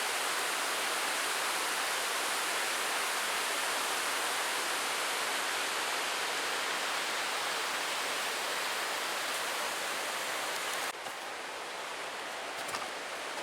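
Rushing stream water, a steady loud rush. About eleven seconds in it drops suddenly to a quieter rush.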